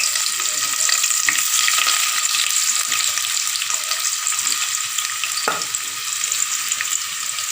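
Chopped onions sizzling steadily as they fry in oil in a saucepan, with a few light clicks.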